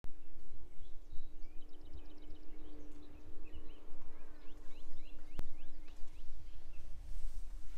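Wild birds singing outdoors: a quick trill of about eight notes, then a run of short slurred chirps. Under them run a steady low hum and an uneven low rumble, with a single sharp click about five seconds in.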